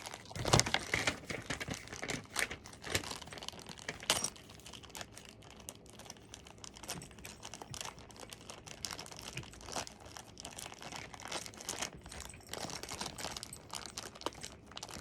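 Plastic packaging crinkling and small parts clicking irregularly as flat-pack cat-tree hardware is rummaged through and sorted, with the sharpest clatters in the first second and about four seconds in.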